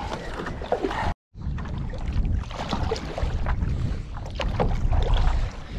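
Strong wind buffeting the microphone over water splashing and slapping against a paddleboard as it is paddled through choppy open water. The sound cuts out for a split second about a second in.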